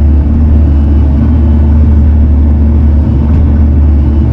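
Bobcat T650 compact track loader's diesel engine running steadily, a loud low drone with no change in pitch.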